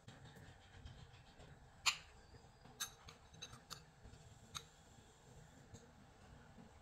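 A few light clinks and taps of a metal fork and cake server against a ceramic plate as cheesecake is plated and a bite cut off, the sharpest clink about two seconds in.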